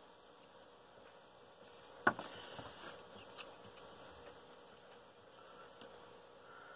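Playing cards being handled on a cloth playmat: a sharp tap about two seconds in, then a few lighter clicks and rustles.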